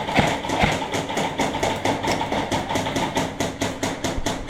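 Airsoft guns firing a rapid string of shots, about six a second, with a couple of heavier knocks in the first second.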